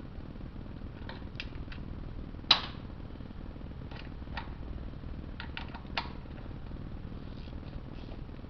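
Scattered sharp metallic clicks and clinks of a hand tool working the 10 mm oil pan bolts off a BMW 5L40E automatic transmission, with one louder clink about two and a half seconds in and another about six seconds in, over a steady low hum.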